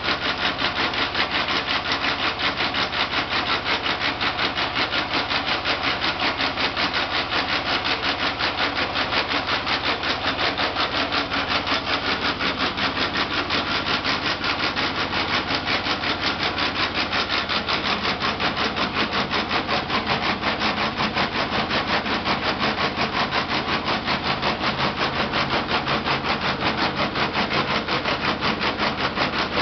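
Bakery production machinery running with a fast, even, rhythmic mechanical clatter, several strokes a second without a break.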